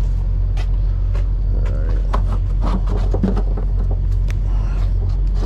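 A vehicle engine idling steadily with a low, even hum, with scattered light clicks and scrapes of hands and tools working at a truck's battery box.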